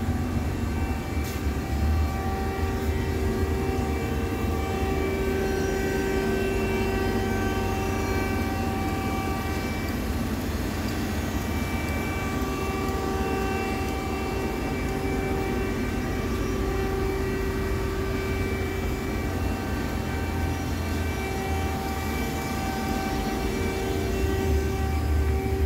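Hardinge XR700 vertical machining center running with its power on: a steady machine hum with a low rumble and several steady whining tones over it. A single sharp click about a second in.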